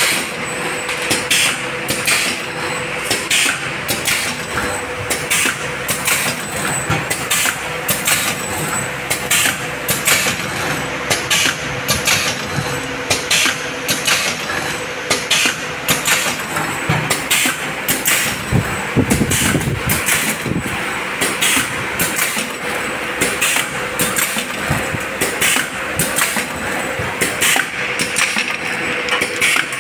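Automatic form-fill-seal pouch packing machine running: a steady hum under a rhythmic clatter of clicks and clacks as the pneumatic sealing jaws cycle, with a deeper rumble for a moment about two-thirds through.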